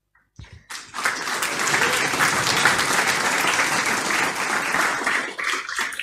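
Audience applauding: dense clapping that starts just under a second in and dies away near the end.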